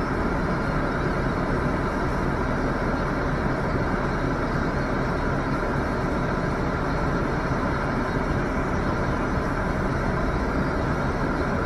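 Steady traffic rumble and hiss picked up by a dashcam microphone, even in level with no distinct knocks, horns or impacts.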